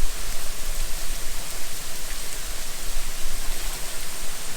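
Waterfall cascade running: a steady, even rush of falling water.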